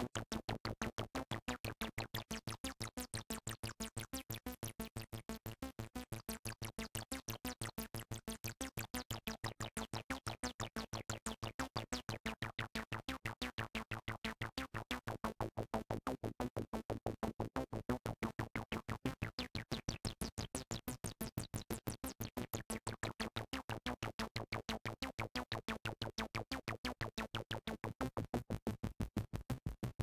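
Behringer MS-101 analog monophonic synthesizer playing a fast sequenced pattern of short, evenly spaced notes, its tone brightening and darkening as the filter sliders are moved.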